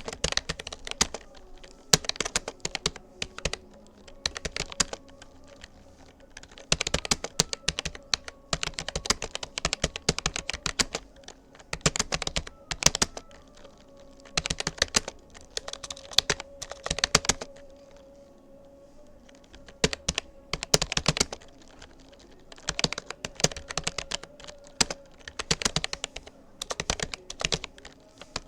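Keystrokes on a Rapoo computer keyboard, typed in quick runs broken by short pauses of a second or two.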